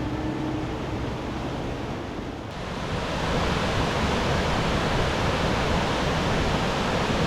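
Steady rushing of a mountain stream and its waterfall. About two and a half seconds in, it switches abruptly to a louder, brighter rush.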